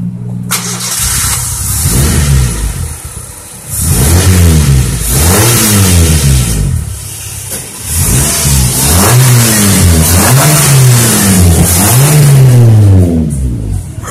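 Honda Civic's D16 VTEC four-cylinder engine revved in about nine quick blips, each rev climbing and falling back. The engine idles for the first couple of seconds before the revving starts.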